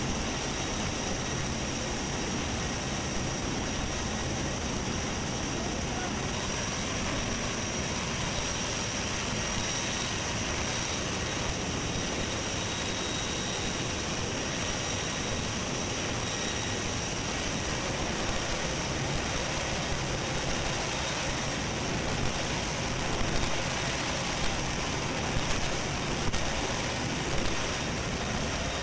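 Steady noise of a military transport plane in flight, heard from inside the cargo hold: engine drone and air rushing past the open paratroop door, with a faint high engine whine. A few brief louder bumps come near the end as paratroopers jump from the door.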